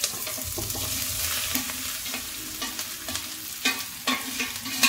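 Potato and cauliflower pieces sizzling as they tip into hot oil in a pot, with a wooden spatula scraping and knocking against the air-fryer basket. A steady sizzle with several sharp knocks, the loudest near the end.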